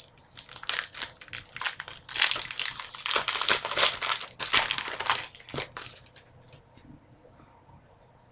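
Wrapper of a 2011-12 Panini Certified hockey card pack crinkling and tearing as it is opened, a run of crackles lasting about six seconds.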